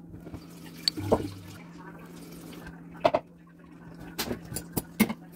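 Kitchen handling noises: a few short knocks and clicks, about a second in, twice about three seconds in and several near the end, over a steady low hum.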